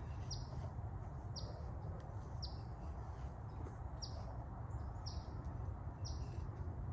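A bird giving a short, high chirp over and over, about once a second, over a faint low rumble of outdoor background noise.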